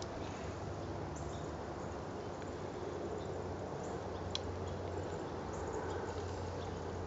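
Steady, quiet outdoor background noise with a faint click about four seconds in.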